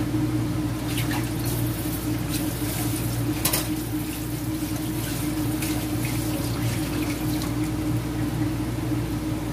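A steady mechanical hum with a few faint short clicks, about one to four seconds in.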